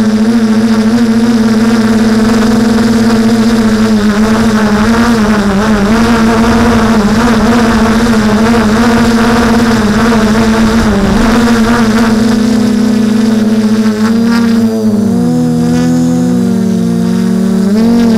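Drone's electric motors and propellers whining steadily, heard close up from the craft itself, the pitch wavering as it climbs and turns. About fifteen seconds in, the single whine splits into several shifting pitches as the rotors change speed separately.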